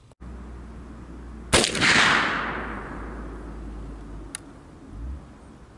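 A single shot from a .32 caliber CVA percussion-cap muzzleloading squirrel rifle about a second and a half in, a sharp report followed by a long echoing tail that fades over about a second.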